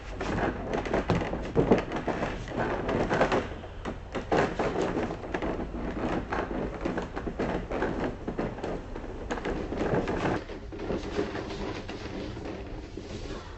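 Shoes and hands thumping and scraping against a wooden plank obstacle wall as a climber runs at it and scrambles up and over. It is a rapid, uneven series of knocks, busiest in the first few seconds.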